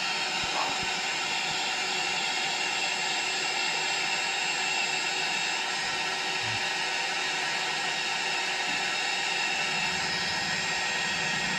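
Steady whirring drone of a small electric motor, with a few thin fixed whining tones over a constant hiss.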